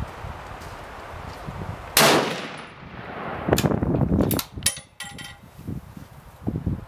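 A single shot from a Ruger American bolt-action rifle in .30-06 Springfield about two seconds in: a sharp, loud crack that rings off over about a second. A second or so later come several metallic clicks and clacks as the bolt is worked, ending in a short metallic ring.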